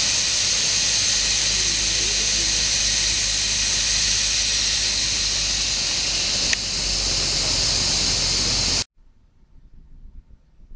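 Steady hiss over a low rumble, cutting off abruptly about nine seconds in, with a brief click shortly before the cut.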